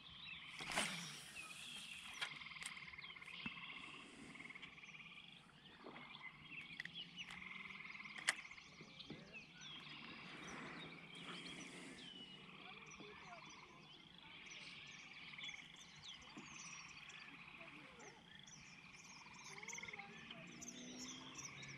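Faint chorus of frogs trilling steadily over calm water. A brief rush of noise comes about a second in, and a single sharp click about eight seconds in.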